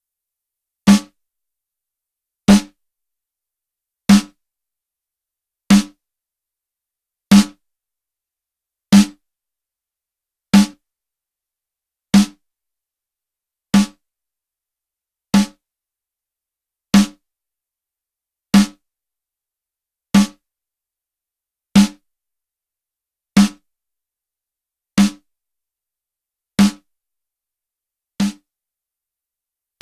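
A recorded snare drum hit repeating on a loop about every 1.6 seconds, each a short crack that dies away quickly, run through a Lindell Audio 7X-500 compressor, an 1176-style 500-series unit whose settings are being adjusted. The last couple of hits are a little quieter.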